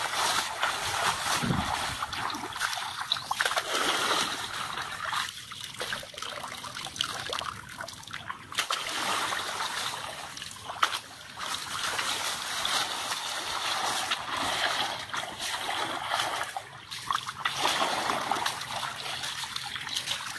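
Water splashing and sloshing, rising and falling in uneven surges.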